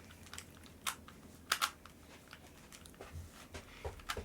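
Plastic 3x3 Rubik's Cube being turned one-handed: a few scattered clicks and clacks of the layers, the loudest about a second and a half in.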